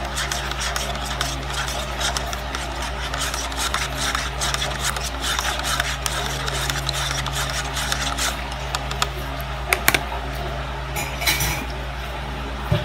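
A plastic spoon stirring coffee in a cup: rapid, continuous scraping and clicking against the cup's inside, over a steady low hum, with a few sharper clicks near the end.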